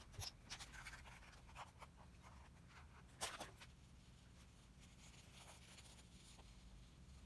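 Graphite pencil sketching on sketchbook paper: faint, short scratching strokes, with one louder scrape about three seconds in.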